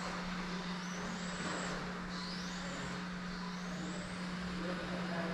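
Electric RC touring car's brushless motor and drivetrain whining, rising in pitch about three times as the car accelerates, with a steady low hum underneath.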